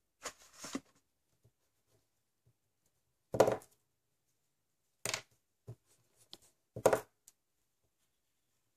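Pencil-and-paper handling sounds on a tabletop: a brief rustle of a hand sweeping across the drawing paper, then three short, louder scratches or knocks spaced a second or two apart, with faint ticks in between.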